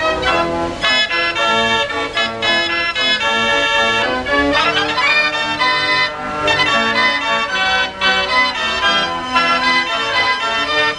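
Gavioli fair organ playing a tune, many pipes sounding together, with the notes changing several times a second.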